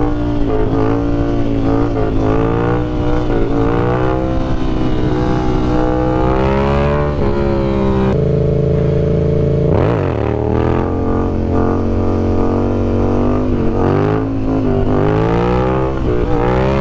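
Yamaha MT-07 motorcycle's parallel-twin engine through an aftermarket M4 exhaust, accelerating and shifting: the pitch climbs and drops back several times as the rider opens the throttle, shifts up and rolls off.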